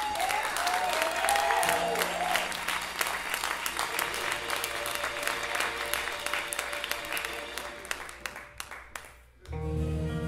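A theatre audience applauding and cheering, with whoops in the first second or two, over soft held music. The applause dies away near the end, and a band's music comes in with a steady bass line.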